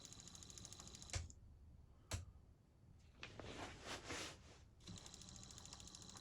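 Lucas FW2 wiper motor running with a faint steady whir, which cuts out with a sharp click about a second in. Another click follows, then a second or so of rustling handling noise, and the whir starts again near the end.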